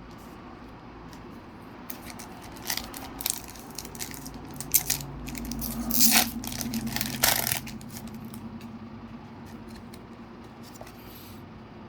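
Foil booster-pack wrapper being torn open and crinkled, and trading cards rustling and sliding as they are handled. The crackling is densest and loudest about six to seven seconds in, over a low steady hum.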